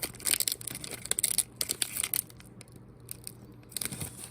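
Plastic wrapper of a Pokémon trading-card promo pack crinkling and tearing as it is worked open by hand. The crinkling is busiest in the first two seconds, dies down, then picks up briefly near the end.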